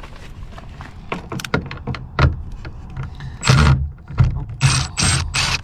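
Small clicks and knocks of tools and hardware, then four short whirring bursts of a small power tool on a 6 mm socket, backing out the door screws.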